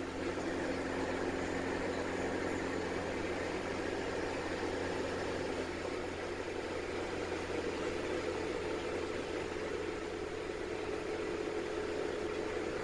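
Steady drone of a Diamond DA40 Diamond Star's piston engine and propeller heard inside the cabin in flight, a mix of low hums and rushing noise. A higher hum comes in about halfway through.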